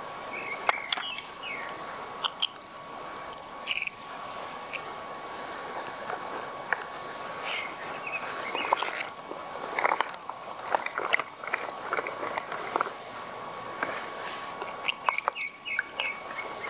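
Eggs cracked and tipped into a wooden bowl, with short sharp clicks and knocks of handling, over outdoor ambience with birds chirping and a faint steady high tone.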